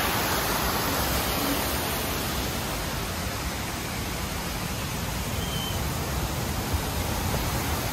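Steady rush of water pouring through a working water wheel and its feed channel, an even, unbroken noise.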